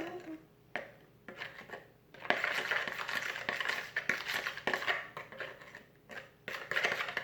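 Gloppy slime being mixed in a container, a utensil scraping and clicking against its sides in uneven stretches.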